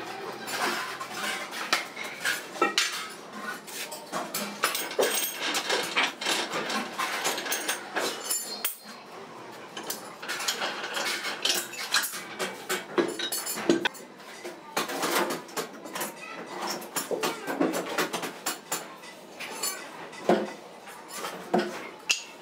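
Steel parts of a hand-operated tyre spreader clinking and clanking as the frame, screw and crossbar are handled and taken off a truck tyre: irregular sharp metallic clinks and knocks, with a short lull about halfway through.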